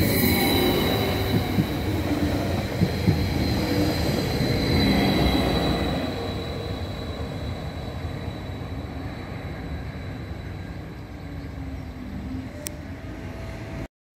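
A train rolling past on the rails, its rolling noise carrying a high wheel squeal. The sound fades away from about six seconds in and then cuts off suddenly near the end.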